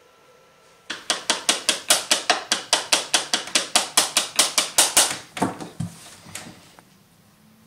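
A pencil tapped rapidly on a tabletop, about seven sharp taps a second for some four seconds, then a few slower, weaker taps before it stops.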